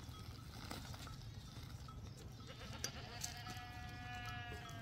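A goat bleats once, a long, steady call that starts about two and a half seconds in and lasts nearly two seconds.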